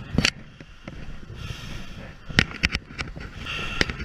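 A scattered series of sharp knocks and clicks over a faint background: handling noise on a helmet-mounted camera being jostled and turned.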